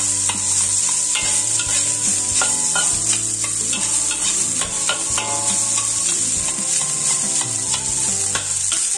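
Metal spatula scraping and tossing rice around a hot wok in quick strokes, with a steady sizzle of frying oil under it.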